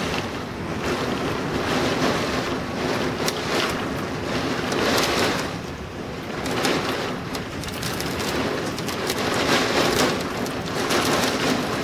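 Storm winds of around 75 mph and driving heavy rain. The wind surges and eases in gusts every few seconds, buffeting the microphone, with scattered sharp ticks.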